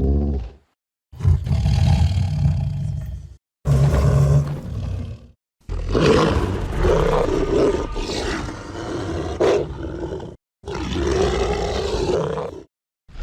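Designed monster vocalizations of a giant adult dog creature: five separate calls cut apart by dead silence, the longest running about five seconds through the middle with a bending pitch.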